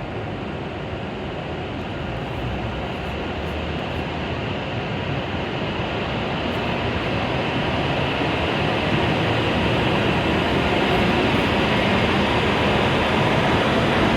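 W7 series Shinkansen train pulling out of the platform, its running noise growing steadily louder as it gathers speed.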